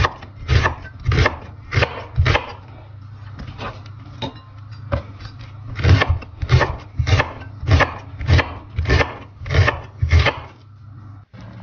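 Chef's knife shredding white cabbage on a wooden cutting board: a steady rhythm of sharp chops, a little under two a second, that thins out for a couple of seconds in the middle before picking up again.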